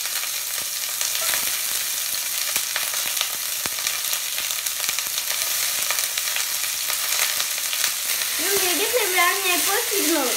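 Sliced onion and green capsicum sizzling in hot oil in a stainless steel pan, with scattered clicks of a spatula against the pan. A wavering pitched sound comes in over the sizzle near the end.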